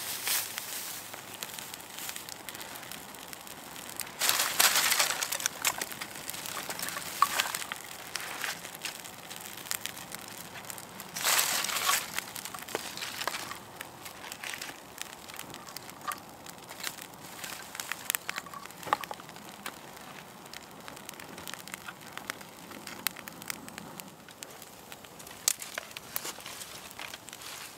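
Freshly lit campfire of bracken, birch bark and dry twig kindling catching and crackling with many sharp pops. Twice, a few seconds in and again near the middle, there is a louder spell of dry crunching and snapping as handfuls of thin twigs are laid on the flames.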